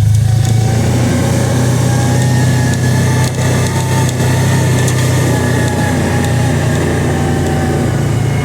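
Engine of a 2022 Kawasaki Teryx 800 side-by-side, a parallel-twin, running steadily at an even pitch.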